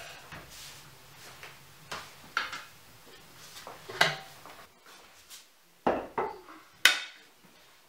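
Wooden stool being shifted and an aluminium milk can being carried and set down on it: a series of knocks and metallic clanks, the sharpest about four seconds in and near the end.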